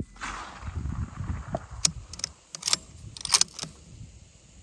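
The rifle shot fired just before rolls back off the surrounding hills for about a second, fading. Then comes a quick string of sharp metallic clicks and clacks, the sound of the rifle's bolt being worked to chamber another round.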